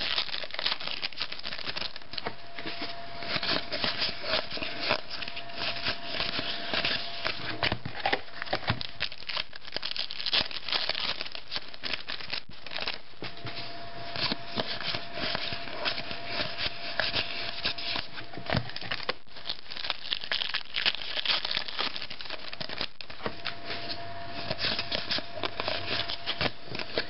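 Shiny foil trading-card pack wrapper crinkling and tearing as it is opened by hand, then stiff cardboard cards rustling and sliding against each other as they are thumbed through.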